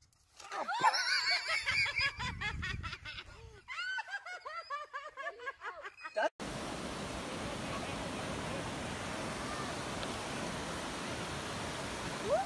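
Hearty, high-pitched laughter in quick repeated bursts. About six seconds in it cuts off suddenly to the steady rushing noise of surf.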